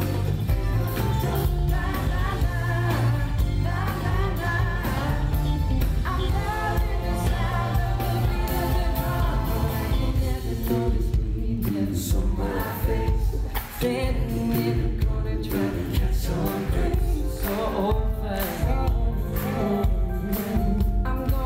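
Male vocal harmony group singing a pop song live in close harmony, several voices together, over a band with bass and drums.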